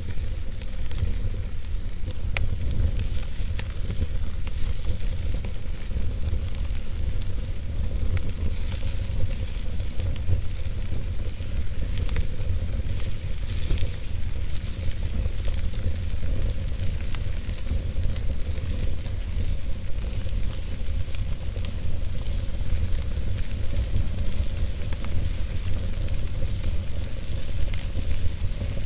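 Wood fire burning in a fireplace: a steady low rumble of flames under frequent small crackles and pops from the burning logs.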